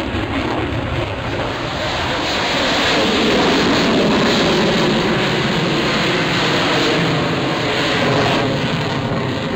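F-22 Raptor's twin Pratt & Whitney F119 turbofans during a display pass: loud, steady jet noise across the whole range. It swells about three seconds in and eases a little near the end.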